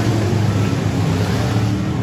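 A pack of dirt-track race cars racing around the oval, their engines running together in a steady, loud mix with track noise.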